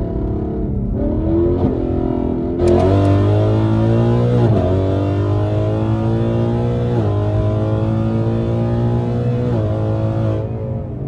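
Ford Mustang GT 5.0 V8 with Kooks long-tube headers accelerating hard through the gears. The engine note climbs steadily and drops sharply at each of about four quick upshifts, and it gets louder as the throttle opens a few seconds in.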